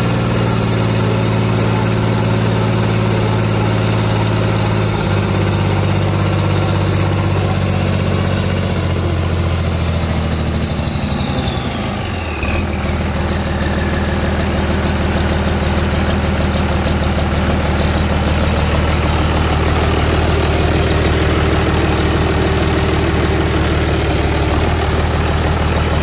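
Cummins 330 marine diesel running after a cold start. About eleven to twelve seconds in, the revs drop to a steady lower idle, and a high whine falls in pitch as they come down.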